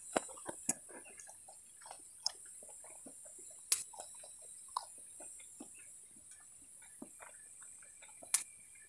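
Close-up eating of boiled corn on the cob: soft irregular chewing crunches and small clicks of kernels, with two sharper snaps, one a little before the middle and one near the end. A faint steady high hiss runs underneath.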